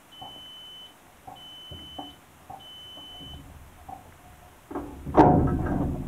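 Fisher & Paykel dishwasher beeping three times, long even high tones with short gaps, the signal that the wash cycle has finished. About five seconds in comes a sudden loud clunk.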